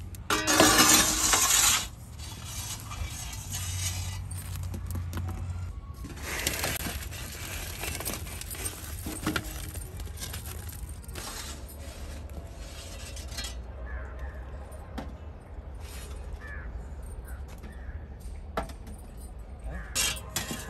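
Baked bagels being handled on an aluminium baking tray and a cloth: rustling of the cloth and scattered light clinks and knocks against the metal tray. The loudest rustle lasts about a second and a half near the start.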